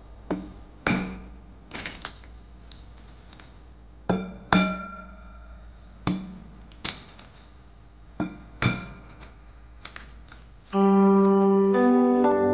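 Eggs tapped against the rim of a ceramic bowl to crack them: a series of sharp clicks and knocks, often in pairs, each with a brief ring from the bowl. About eleven seconds in, piano music starts and takes over.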